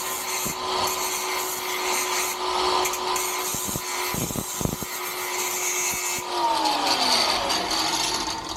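Small power tool running at steady speed, grinding to clean up the freshly cut thread on a steel flush-bolt rod, with a few sharp clicks partway through. The tool switches off about six seconds in and winds down.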